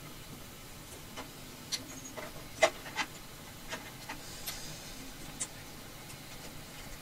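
Light rubbing and a scatter of small clicks from wires and plastic pin connectors being handled and fitted onto a 3D printer's main board. The sharpest click comes about two and a half seconds in.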